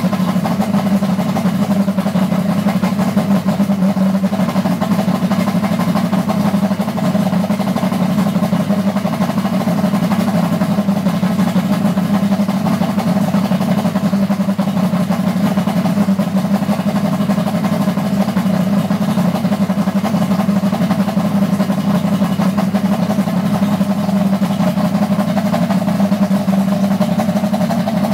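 OMC (Johnson/Evinrude) two-stroke outboard engine running steadily with no change in speed. Its VRO2 oil-injection pump has its oil supply cut off for a no-oil alarm test, and the warning horn has not sounded.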